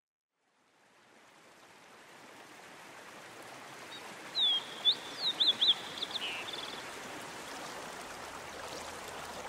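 Steady hiss of flowing water that fades in from silence, with a bird singing a short phrase of clear whistled notes, some sliding down and some up, about four to six seconds in.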